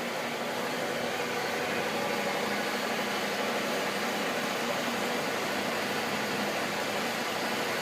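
Gisholt 3L saddle-type turret lathe running, a steady even mechanical hum with no distinct knocks.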